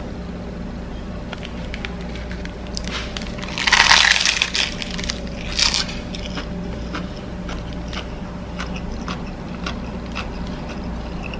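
Crisp roasted-seaweed (nori) hand roll crunching and crackling: one loud crackle about four seconds in, a shorter one just before six seconds, and scattered faint clicks, over a steady low hum.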